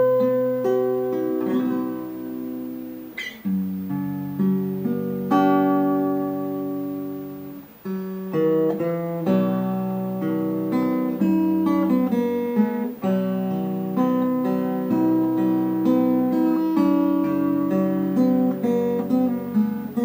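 Background music: acoustic guitar picking melodic notes over held bass notes, with a short pause about eight seconds in.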